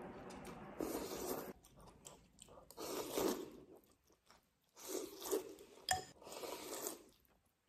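A person slurping noodles from a bowl, four long noisy slurps about two seconds apart, with one short sharp click about two-thirds of the way through.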